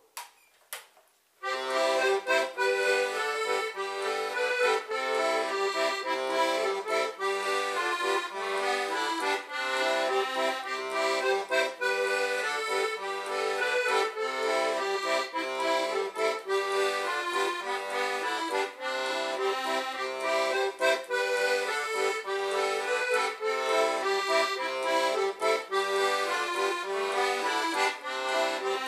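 Diatonic button accordion (Portuguese concertina) playing a traditional tune, melody and bass together, after a short click near the start.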